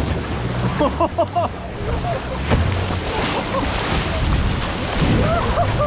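Breaking tidal-bore waves rushing and splashing around a canoe, with wind buffeting the microphone.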